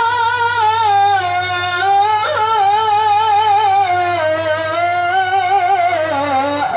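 A male qori chanting Quran recitation in the melodic tilawah style into a microphone. One long, unbroken, ornamented phrase with quick wavering turns, held high and stepping down in pitch near the end.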